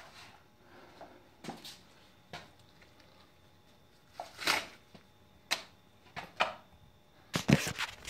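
Scattered short rustles and knocks, about one a second, as stiff vinyl-coated mesh panels are handled and moved, then a quick run of louder close bumps near the end as the camera is picked up and swung around.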